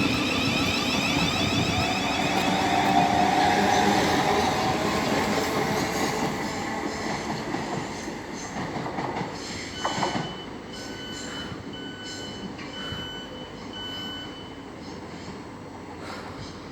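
Electric passenger train running through the platform with a high wheel squeal and a motor whine, fading away over the first several seconds. About ten seconds in, a series of about five short, evenly spaced beeps sounds.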